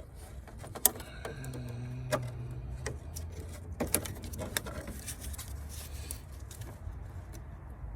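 Scattered metallic clicks and clinks of hand tools against engine parts, with a sharp knock about a second in and another near four seconds in.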